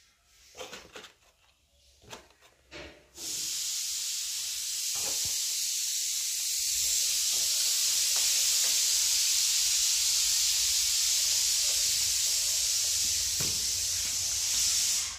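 A few handling knocks and rustles, then about three seconds in a loud, steady hiss cuts in and holds evenly until it stops abruptly.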